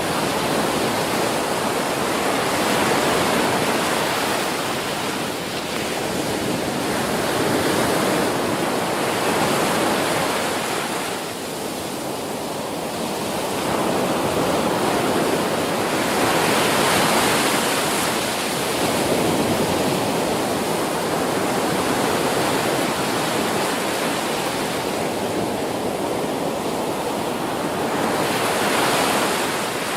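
Ocean surf: waves breaking and washing onto a beach in a continuous roar that swells and eases every few seconds.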